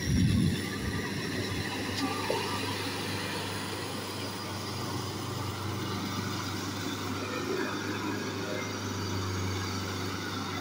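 Kubota L4508 tractor's diesel engine running steadily as it tills through wet paddy mud, with a brief loud low rumble right at the start.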